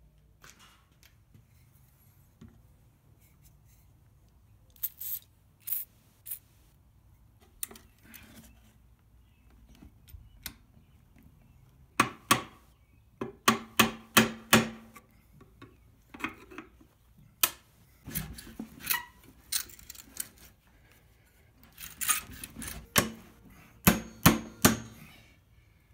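Hammer blows on a flat-bladed tool wedged under a worn glide on a steel pipe chair leg, knocking the old glide off: sharp metallic knocks in quick bursts of several strikes, with short pauses between the bursts.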